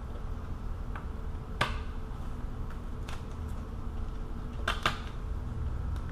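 A few sharp plastic clicks and taps, two of them in quick succession near the end, from working a wiring harness and its clips onto a radiator fan assembly, over a steady low hum.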